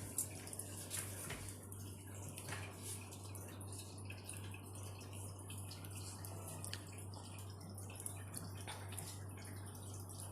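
Quiet room tone: a steady low hum with scattered faint clicks and ticks.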